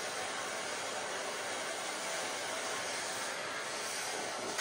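Air-acetylene Turbo Torch flame burning steadily against a copper pipe fitting, heating the joint for silver brazing. A short click comes right at the end.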